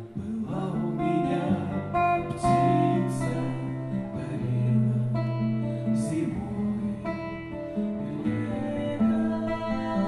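Slow bard song on acoustic guitar, with long held notes and a voice singing over it, and no words made out.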